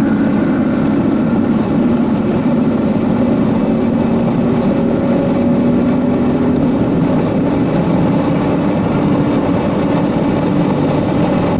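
Steady drone of a car driving at highway speed, heard from inside the cabin: even road and wind noise with a low hum.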